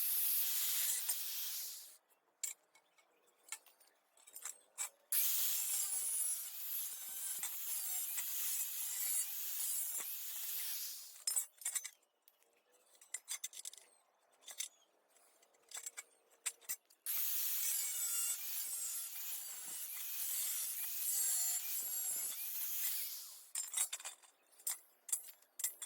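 Steel square tubing being cut or worked in long bouts of scraping, hissing noise, with quieter gaps full of sharp metal clinks and knocks as the pieces are handled.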